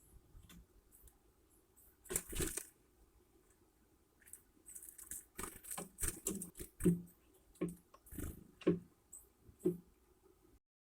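Great spotted woodpecker pecking at food at a bird feeder: irregular sharp taps and knocks, about one or two a second, after a brief scratchy rustle about two seconds in.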